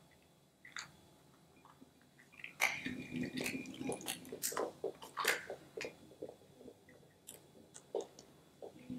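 Water gel beads squeezed out of a cut-open stress ball's clear rubber skin and dropping into a bowl: a dense run of wet clicks and crackles from about two and a half to five and a half seconds in, then scattered small clicks.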